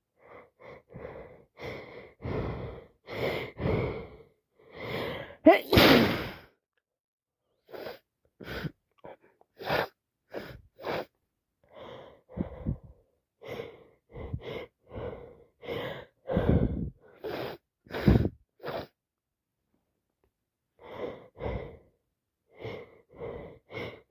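A person with a heavy head cold sneezing repeatedly between short gasping breaths. The loudest sneeze comes about six seconds in, and another strong one around eighteen seconds.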